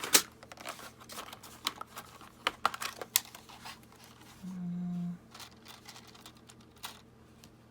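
Paper rustling and crinkling, with a quick run of small clicks and taps, as journal pages are handled and a clip is fitted onto them. A short, low hummed voice sound about four and a half seconds in.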